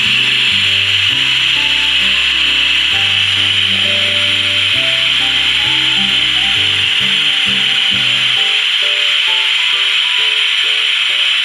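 Background music of stepped low notes, changing about twice a second, over a steady rasping hiss. The deepest notes drop out about two-thirds of the way through.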